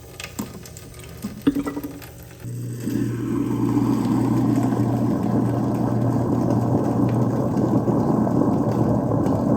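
A few clicks as foaming cleaner tablets drop into the sink drain. Then, about two and a half seconds in, a garbage disposal switches on and runs steadily with a low motor hum over a rushing, churning noise.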